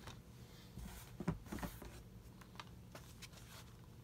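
Faint handling noise: a few light clicks and rustles of plastic Blu-ray cases being moved about.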